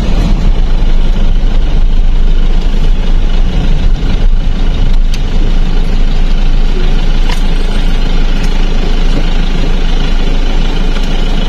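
Car engine and road noise heard from inside a taxi's cabin as it drives slowly along: a steady low rumble with a few light clicks.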